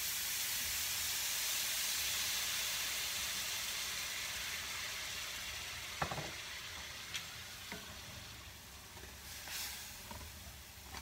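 Red wine sizzling and hissing as it deglazes a hot cast iron skillet, the sizzle slowly dying down. A sharp knock about halfway through, then a few light taps and a brief scrape near the end as a wooden spatula stirs the pan.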